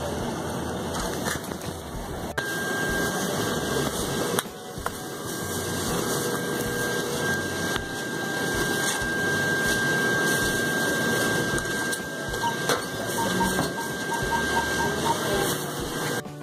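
Jacket fabric rustling and rubbing against a phone's microphone, a dense scraping noise. A thin steady high tone runs underneath through most of it, and near the end there is a quick run of short beeps.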